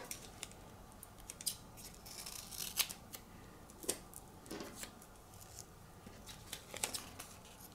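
Faint crinkles and light clicks of pre-cut vinyl pieces on transfer tape and backing paper being picked up, stacked and pressed down on a cutting mat, in scattered short bursts.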